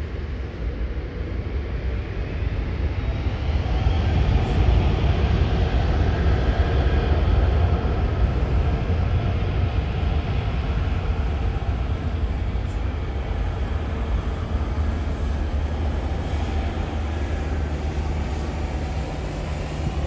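Four jet engines of an Airbus A380 airliner running as it taxis onto the runway: a steady engine roar over a deep rumble, with a whine that rises in pitch over the first few seconds and the sound swelling a little soon after.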